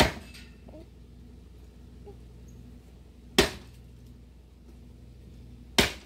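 Axe chopping a log of firewood: three heavy strikes, one at the start, one about three and a half seconds in and one near the end.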